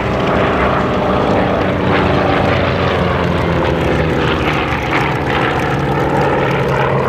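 Propeller-driven piston-engine aircraft flying past, loud, its engine note sinking slowly in pitch as it goes by.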